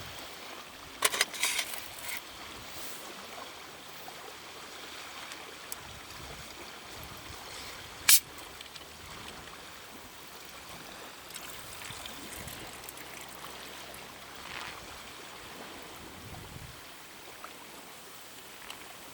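Steady trickling, lapping water noise, with a cluster of rustling clicks about a second in and one sharp click about eight seconds in.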